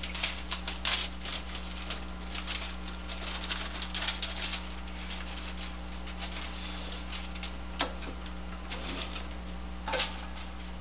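New ribbon rolls being fitted onto a thermal printer's ribbon spindles by hand: a quick run of small plastic clicks and rustles for the first four seconds or so, then a few scattered clicks, over a steady low hum.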